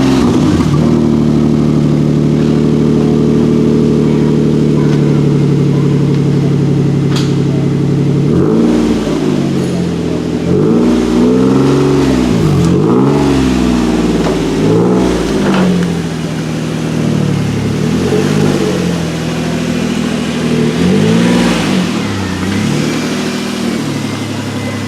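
Car engine just started, running at a steady fast idle, then revved in a series of about ten quick blips before settling back to a lower idle near the end, heard through a newly installed cat-back exhaust.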